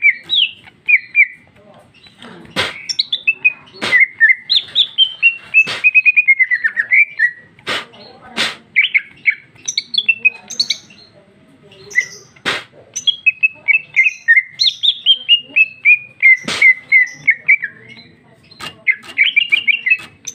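Female greater green leafbird (cucak ijo) singing in long, loud runs of quick chirps. Each run steps down in pitch and repeats again and again, with a few sharp clicks between the phrases.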